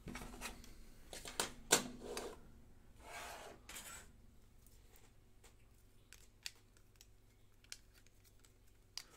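Hands handling plastic card holders and setting one on a display stand: a flurry of clicks and plastic rubbing over the first four seconds, then a few faint single ticks.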